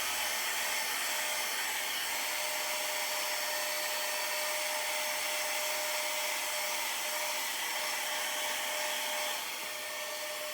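Mini handheld blower-vacuum running steadily as it blows dust off a laptop heat sink and fan: an even whirring with a thin steady whine that fades near the end, when the sound drops slightly.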